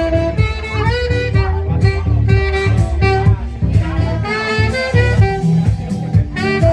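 Jazzy music: a saxophone playing a melody with sliding notes over a band backing with a steady beat.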